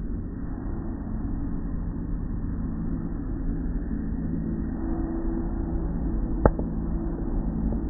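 Automatic car wash machinery running on a car: a steady rumble of spraying water and spinning cloth brushes over a low machine hum, with one sharp knock near the end.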